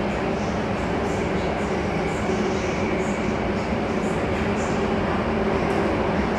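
Alstom Metropolis C830C metro train running through a tunnel, heard from inside the car: a steady rumble and hiss with a low hum running under it.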